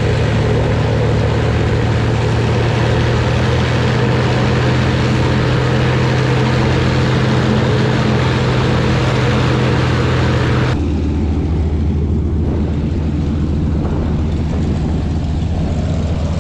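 Propeller aircraft engine running steadily, a loud drone with a hum and hiss. About eleven seconds in it changes abruptly to a deeper, duller drone.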